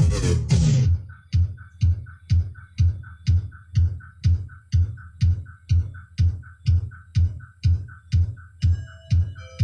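Electronic dance remix: the full dense mix drops out about a second in. It leaves a steady kick drum about two beats a second, with short snappy hits and high ticks between the kicks. Held synth notes come back in near the end.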